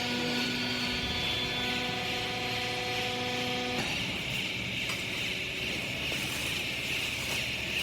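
Hydraulic clothing baler's motor and pump running with a steady hum that cuts off about four seconds in, leaving a steady hiss.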